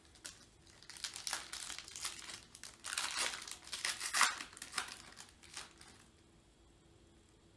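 A trading-card pack's wrapper being torn open and crinkled by hand, an irregular run of crinkling that is loudest about four seconds in and stops about six seconds in.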